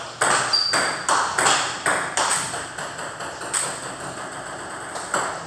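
Table tennis balls clicking off paddles and tables in quick, overlapping rallies, with each sharp click ringing briefly in a large hard-walled hall.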